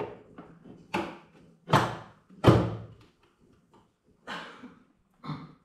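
About five separate knocks and thuds, each dying away quickly, the loudest two near the middle: the bread machine and its pan being handled as it is loaded and shut.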